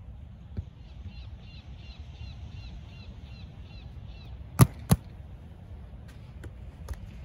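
Two sharp slaps of hands striking a volleyball, about a third of a second apart, over a low steady rumble. Before them, faint high chirps repeat about four times a second for roughly three seconds.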